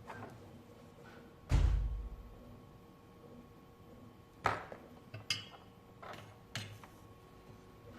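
A heavy thump about one and a half seconds in, followed by three lighter, sharper knocks and clicks, over a faint steady hum.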